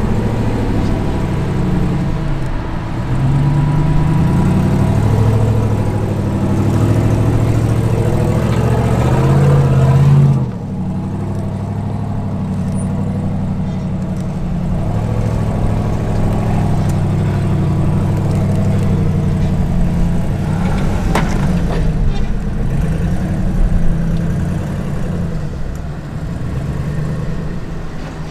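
Off-road Jeep engine revving up and down under throttle for about ten seconds, then dropping suddenly to a lower, steadier running note with gentle swells in revs. One sharp click comes about two-thirds of the way through.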